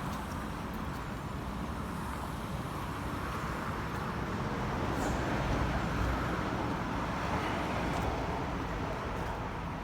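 Steady road traffic noise, rising slightly in the middle as a vehicle goes by.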